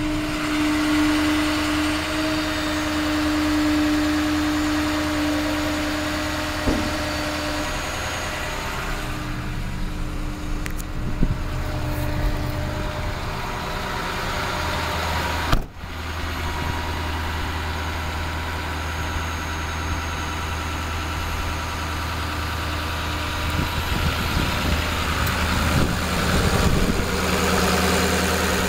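Ford F-450 dump truck engine idling steadily, with a steady whine over it for the first several seconds and one sharp knock about halfway through.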